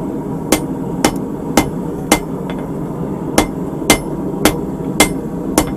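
Blacksmith's hand hammer striking the upset end of a 3/8-inch steel round bar on an anvil to square it off. There are nine sharp blows, about two a second, with a short pause in the middle.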